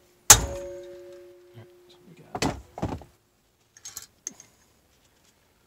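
A strike-type valve keeper removal tool is struck on a valve spring retainer of a Miata 1.8 cylinder head, compressing the valve spring so the keepers pop free into the tool's magnet. It gives one sharp metallic hit that rings out with a fading tone, followed by two duller knocks and a few light clicks.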